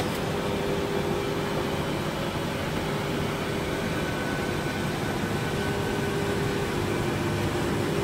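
Steady flight-deck noise of an Airbus A330-300 in flight: an even rush of air and ventilation hum with a constant low tone.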